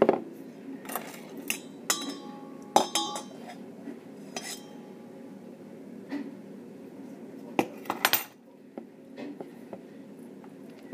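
Irregular clinks and knocks against a stainless steel mixing bowl while a mixture is worked in it, some of them ringing briefly, with a quick cluster of knocks about eight seconds in.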